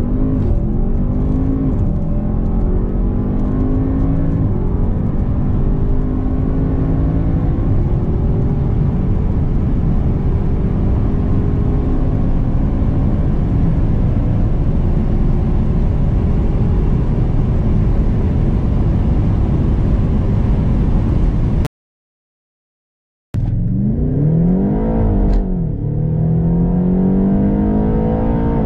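Audi RS7's twin-turbo V8 at full throttle from a launch-control start, heard from inside the car, its note rising steadily through the gears. It stops abruptly about 22 seconds in, and after a second and a half of silence a BMW M8 Competition's twin-turbo V8 accelerates hard, its pitch rising, dropping briefly at an upshift, then rising again.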